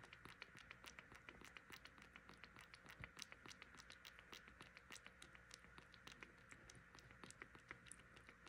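A kitten suckling from a feeding bottle: faint, rapid wet clicks from its mouth working the nipple, several a second and uneven.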